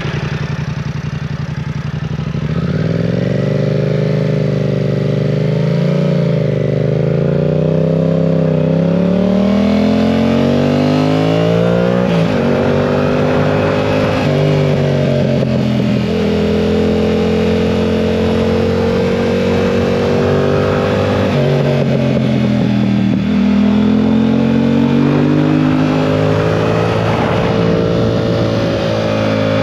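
2022 Yamaha R7's parallel-twin engine running under a rider, steady at first, then pulling away about two seconds in and climbing in revs. The revs drop and climb again several times as it is shifted through the gears.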